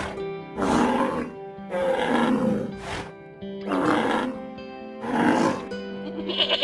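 A big cat roaring four times, each rough roar about a second long, over steady background music.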